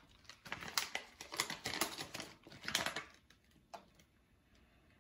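Faint, broken rustling and crinkling of a paper bag and plastic packaging of wax melts being handled, with scattered light clicks, settling down after about three and a half seconds.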